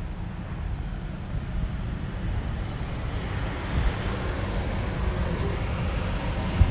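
Road traffic: a car's engine and tyre noise that grows louder from about halfway through, as if coming closer. Under it is a choppy low rumble of wind on the microphone.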